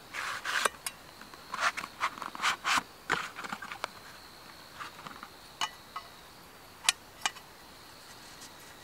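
Matchbox-style box of firelighter sticks handled and its tray slid out: quick scraping and rustling bursts in the first few seconds, then a few single sharp clicks. A steady high insect trill runs underneath.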